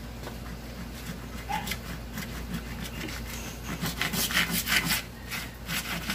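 Handsaw cutting through a thin wooden board, rasping strokes about two to three a second, growing louder in the second half.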